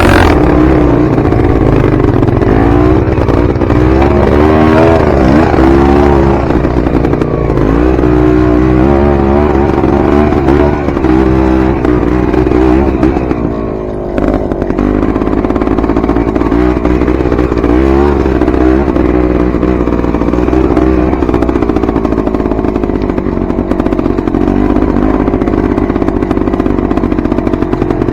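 Dirt bike engine being ridden off-road, its revs rising and falling constantly as the throttle is worked, with a brief drop in revs about fourteen seconds in.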